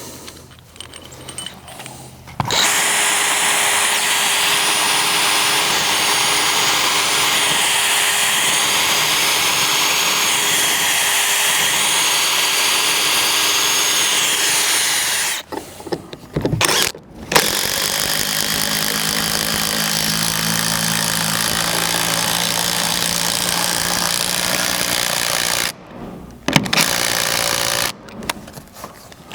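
Power drill driving 3.5-inch lag bolts through a door hinge into wood, in two long runs of about 13 and 8 seconds. The second run sits at a lower pitch, and a couple of short bursts follow near the end.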